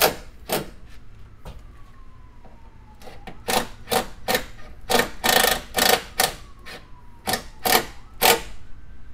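Cordless power driver run in short bursts, tightening bolts down: two quick bursts at the start, then about ten more in quick succession from about three and a half seconds in. A faint siren wails in the background.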